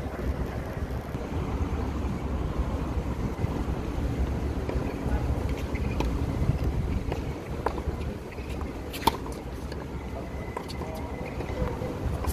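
Tennis balls struck by racquets: a few sharp knocks over a steady low rumble, the loudest about nine seconds in and another near the end as a backhand is hit.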